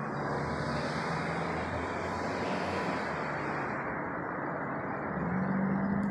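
An airplane's engine running under heavy wind noise. A rushing hiss swells and fades over the first four seconds, and the engine note rises in pitch about five seconds in.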